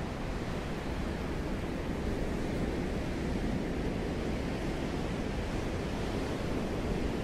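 Steady wind blowing, a low rushing noise without distinct gusts that swells slightly over the seconds.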